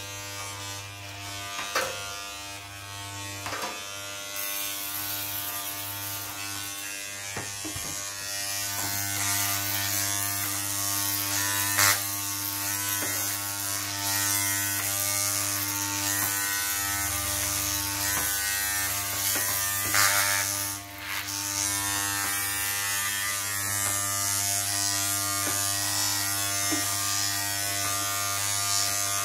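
Corded electric hair clippers with a guide comb buzzing steadily as they are run through short hair, with a few brief clicks from handling, the loudest about twelve and twenty seconds in.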